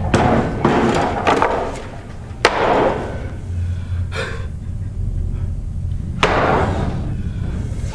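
A series of loud slams and thuds, several a second or two apart, each with a short ringing tail, over a low steady hum.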